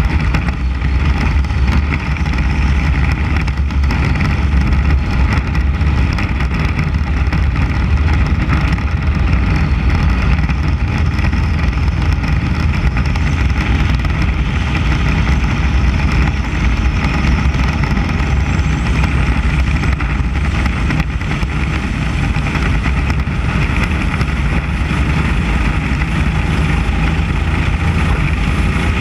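Mini Cup race car's 600cc motorcycle engine running hard at a steady high pitch at racing speed, heard from a camera on the hood, with heavy wind rumble.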